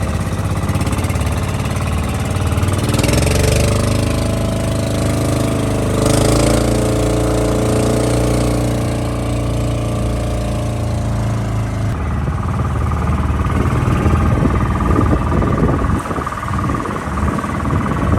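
Small banca fishing boat's motor running under way, its note rising twice in the first few seconds. About twelve seconds in the steady engine note drops away into a rougher, choppier sound.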